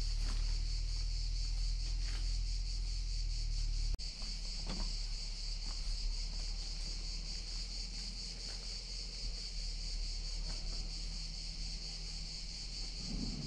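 Steady, high-pitched chorus of insects. A low rumble underneath stops abruptly about four seconds in.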